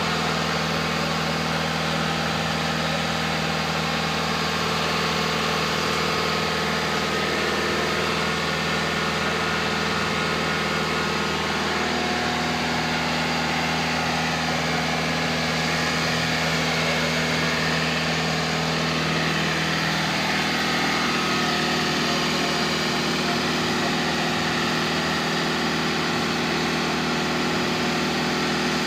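An engine running steadily at an even level, its hum shifting slightly in pitch about twelve and twenty seconds in.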